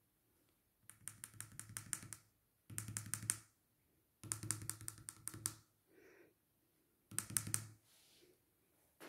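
A small piece of eraser dabbed again and again on a graphite pencil drawing on paper over a hardboard clipboard: four short runs of quick, faint taps. The dabbing lifts graphite to make soft highlights in the shading.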